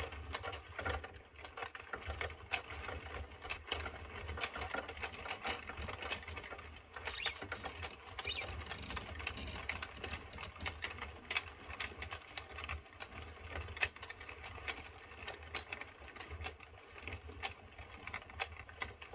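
Addi Express Kingsize circular knitting machine being turned slowly by hand during cast-on, its plastic needles and ring clicking in a quick, uneven patter as yarn is woven onto them.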